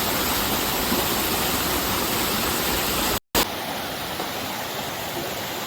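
Steady rush of water over rocks in a mountain stream. It cuts out for an instant about three seconds in and returns slightly quieter.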